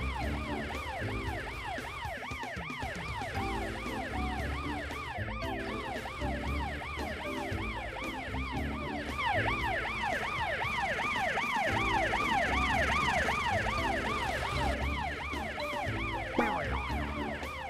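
Cartoon fire truck siren sounding continuously in fast up-and-down sweeps, about three a second, signalling the car behind to follow. Background music with a repeating bass pattern plays under it.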